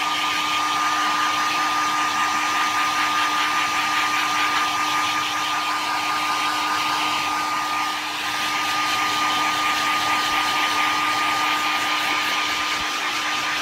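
Handheld hair dryer running steadily, a constant rush of air with a steady motor whine over it.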